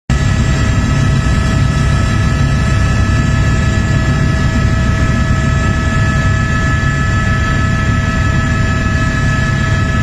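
Helicopter cabin noise: the engine and rotor running at a steady loud drone, with several constant high whines over a deep rumble.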